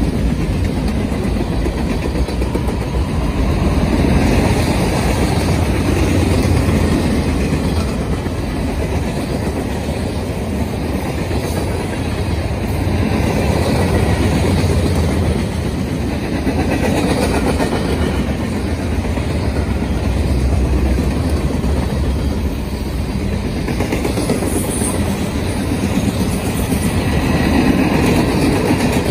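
Freight cars of a passing train rolling by close: a steady rumble of steel wheels on rail with clickety-clack over the rail joints, rising and easing slightly as the cars go past. A brief faint high squeal comes near the end.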